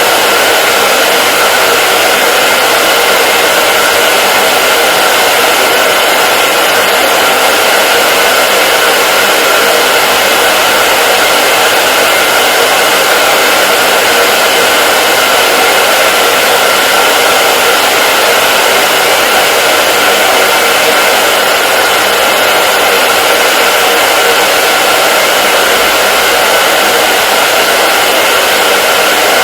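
Hair dryer running continuously at a steady speed: an even, unchanging hiss of rushing air with a faint steady whine from the motor.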